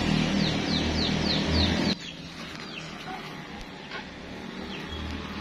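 A bird giving a quick run of about five descending chirps over a low rumble. About two seconds in, the rumble cuts off suddenly, leaving quieter background with a few more single chirps.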